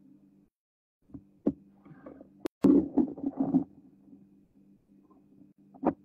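Scattered knocks and a short clatter from things being handled and set down, over a steady low hum. The loudest cluster comes about two and a half seconds in, with two more knocks near the end.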